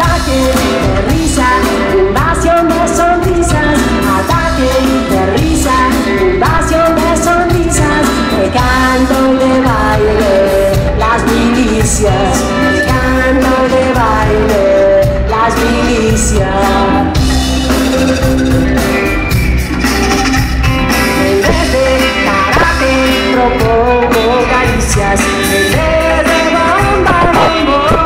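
Live rock band playing with a drum kit, bass and guitars, a woman singing the lead, heard from within the audience.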